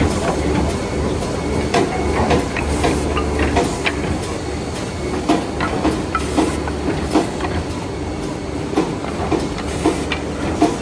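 Woodmaster chalk-mark defect-cutting saw running: a steady machine hum with frequent, irregular sharp clacks and knocks.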